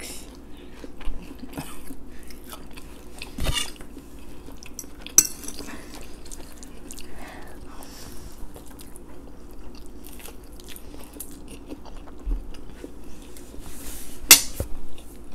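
Close-up eating sounds: spaghetti and garlic bread being chewed, with a few sharp clinks of a fork on a plate.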